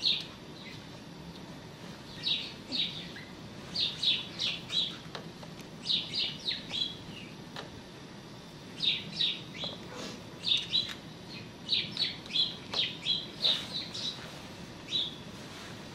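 Small birds chirping: short high chirps in quick runs of two to four, over and over with short pauses, with a few faint taps between them.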